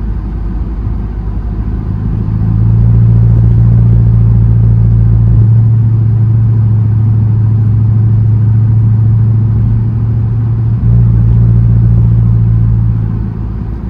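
A 2006 Dodge Charger R/T's 5.7-litre Hemi V8 heard from inside the cabin at a steady cruise: a low, even exhaust drone over road and tyre noise. The drone grows louder about two and a half seconds in and holds until it eases off near the end.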